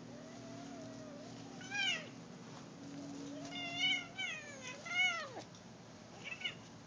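Cat meowing and yowling while pinned by a raccoon: a long wavering cry that rises sharply at its end, then a longer run of rising-and-falling cries, and a short call near the end.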